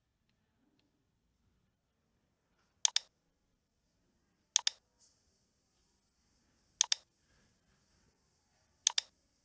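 Computer mouse button clicked four times, about every two seconds, each a quick pair of sharp clicks. A faint hiss comes in about halfway through.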